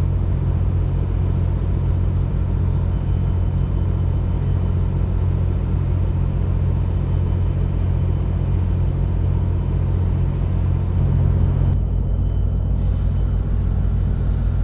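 Steady low engine rumble with a constant hum and no change in pitch or level, briefly dulled near the end.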